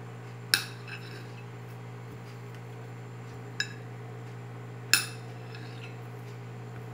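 Kitchen knife cutting through peeled saba bananas and striking the ceramic plate beneath: three sharp, ringing clinks, the loudest about half a second in and about five seconds in, over a steady low hum.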